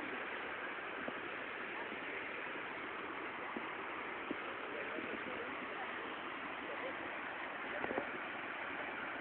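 Waterfall rushing steadily, an even wash of falling water with no breaks.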